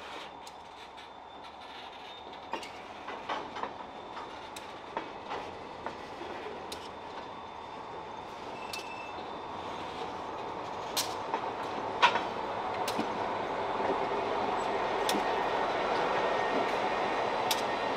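Open-top freight cars rolling slowly past, their wheels clicking and knocking over the rail joints with a brief squeal, then a diesel locomotive's engine growing louder as it draws near over the last several seconds.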